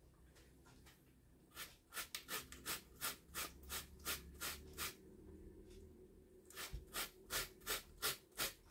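Beetroot being grated on a metal box grater: a run of short, even strokes, about three a second, starting about one and a half seconds in, a brief pause past the middle, then the strokes resume.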